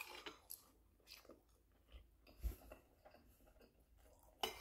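Faint chewing of a mouthful of rice and vegan ground meat, with a few soft mouth ticks, and a brief sharper click near the end.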